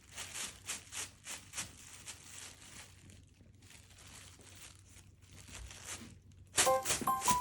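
Soft rustling and light taps, a few a second, from a cat moving about at play, fainter in the middle. Light, bell-like background music starts near the end.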